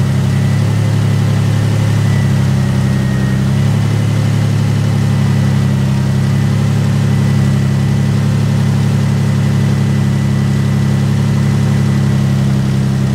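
Infiniti G35's 3.5-litre V6 engine idling steadily, run to bleed air out of a freshly refilled cooling system.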